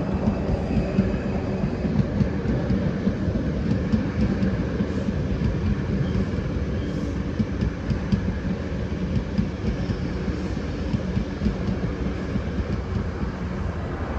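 Class 458 Juniper electric multiple unit rolling slowly past, a steady hum of its running equipment over the noise of wheels on rail.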